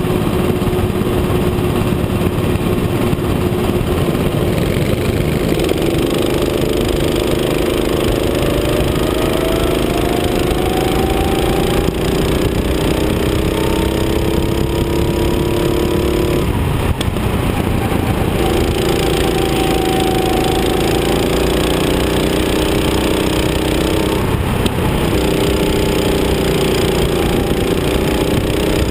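Rental go-kart engine running hard on the lap, its pitch climbing slowly as the kart gathers speed. It drops away briefly twice, a little over halfway through and again near the end, where the throttle is lifted for corners, then picks up again. A steady rush of wind and road noise runs underneath.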